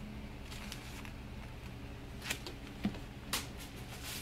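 A crumpled paper ball crinkling and tapping as a cat's fetch toy: a few short crisp sounds, about two and three seconds in and near the end, over a steady low hum.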